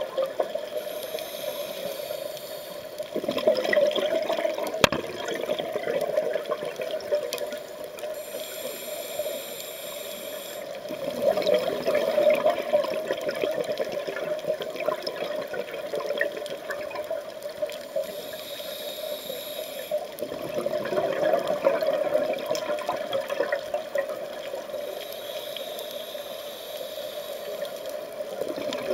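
Scuba breathing through a regulator underwater: a hiss on each inhale and a bubbling rush of exhaust bubbles on each exhale, about one breath every eight seconds, four in all.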